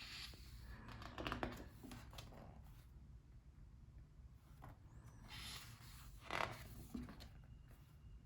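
Pages of a book being turned by hand: paper rustling and sliding in two short bursts, about a second in and again around six seconds in, over a faint low hum.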